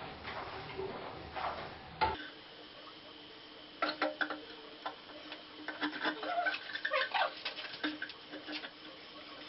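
Scattered light clicks and taps of things being handled, irregular and clustered in the middle seconds.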